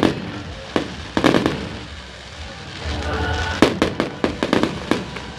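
Aerial fireworks going off: a couple of sharp bangs about a second in, then a rapid string of crackling reports around the four-second mark, over a low rumble.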